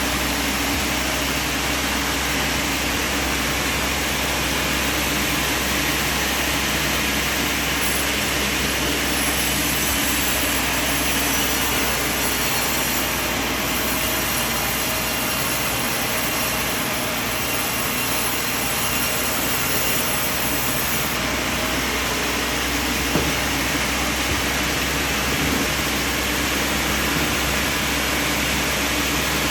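Band sawmill running steadily: a continuous machine noise over a low, even hum.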